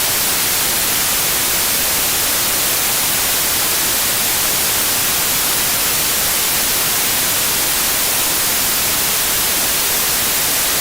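Television static: a steady, even hiss of white noise, with no change in level throughout.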